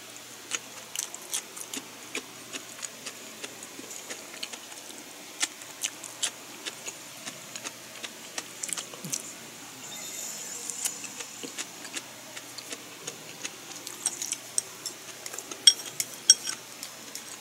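A person eating with chopsticks: chewing close to the microphone, with many irregular sharp clicks and clinks throughout, the two loudest a little before the end.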